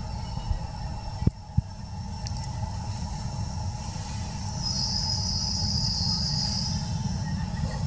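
Outdoor ambience: a steady low rumble with two sharp clicks a little over a second in, and a high, even insect buzz that sets in about halfway through and stops about two seconds later.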